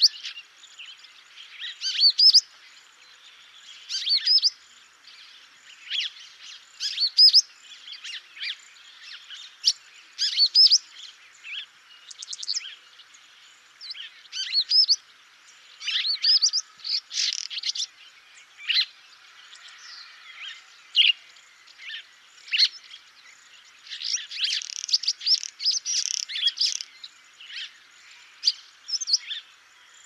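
Wire-tailed swallow (Hirundo smithii) giving short, sharp twittering chirps in irregular bursts, busiest about three-quarters of the way through.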